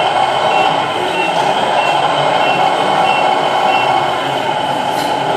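A short, high electronic warning beep repeating about every two-thirds of a second, typical of a heavy vehicle's reversing beeper, stopping about four seconds in, over a steady loud mechanical running noise.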